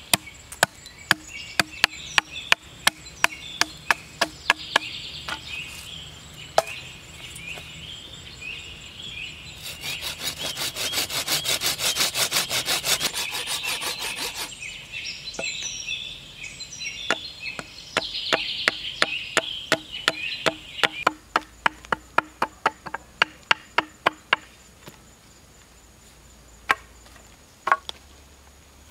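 Machete chopping notches into a peeled wooden pole resting on a log: sharp wooden knocks about twice a second. About ten seconds in, a five-second run of fast back-and-forth strokes as the blade saws across the wood. Then chopping resumes and thins out to a few last knocks near the end.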